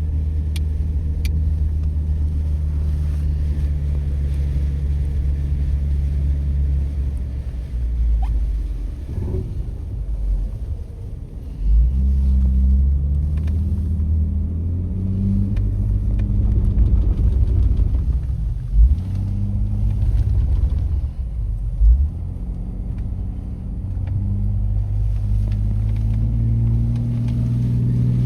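A car driving, heard from inside: a steady low engine hum and road rumble whose pitch shifts a few times, with a few short thumps.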